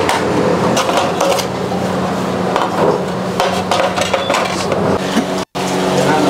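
Eatery clatter: irregular knocks and clicks of dishes and utensils over a steady low hum, cutting out for an instant near the end.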